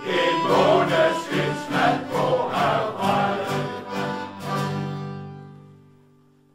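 Closing bars of a song: music with a steady beat and a choir-like vocal part, ending on a held chord that fades out near the end.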